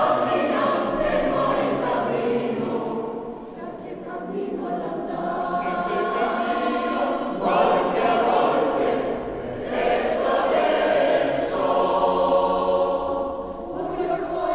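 Mixed choir of men's and women's voices singing together, in phrases separated by brief dips in loudness.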